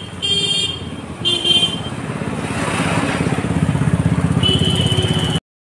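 A motorcycle approaching and passing close by, its engine pulsing louder as it nears. Vehicle horn beeps sound over it: two short ones near the start and a longer one near the end. The sound cuts off suddenly just before the end.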